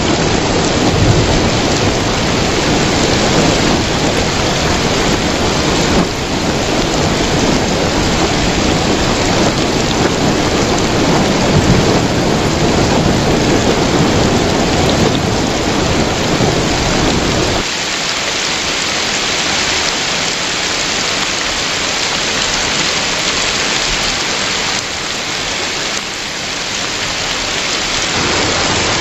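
Heavy rain pouring and splashing onto a wet surface, a dense steady hiss. A deep low rumble underneath cuts off suddenly a little past halfway, leaving the rain lighter in the low end.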